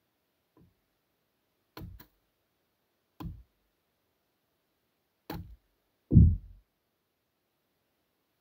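Hand-splitting birch firewood with a hatchet: several sharp wooden knocks, two in quick succession near two seconds in, then one heavy low thud a little after six seconds, the loudest of them.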